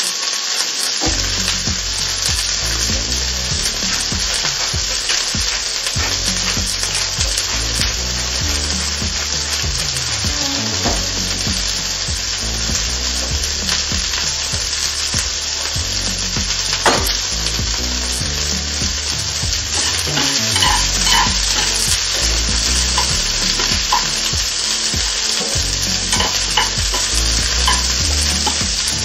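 Broccoli and beef stir-frying in oil in a nonstick pan: a steady sizzle, with scattered small taps and one sharper knock about seventeen seconds in from a wooden spatula stirring the pan.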